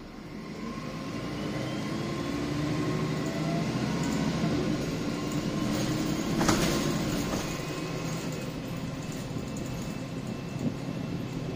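MAN 18.240 bus's diesel engine pulling hard, heard from inside the saloon, growing louder over the first few seconds with a faint rising whine from the drivetrain. A sharp knock comes about six and a half seconds in, after which the engine note settles back to a lower, steady running.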